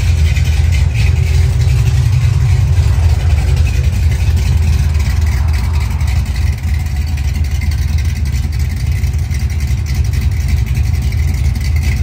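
Chevy Nova engine on a new Quick Fuel Brawler carburetor, idling steadily as it warms up. Its ignition timing is not yet set, so it does not run as smoothly as it should.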